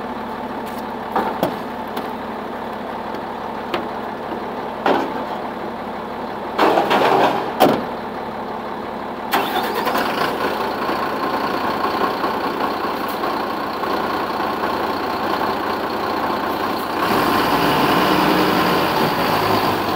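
Diesel engine of a PLS 820 20-ton hydraulic mobile crane running steadily, with a few short knocks in the first eight seconds. About nine seconds in the engine picks up and runs louder, and it rises again about seventeen seconds in.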